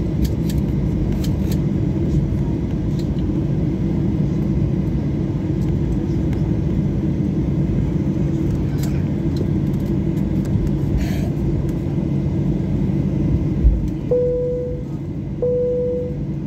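Steady low rumble and hum of an airliner's engines heard inside the cabin while it taxis. Near the end a brief thump, then two short chimes of the same pitch from the cabin signal system.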